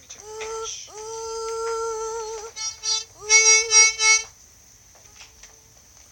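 A man's voice singing a cappella into a microphone: a long held note, then a run of short, louder notes that stops a little over four seconds in.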